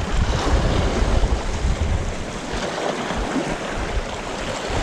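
Wind gusting on a chest-cam microphone, with sea waves washing against shore rocks.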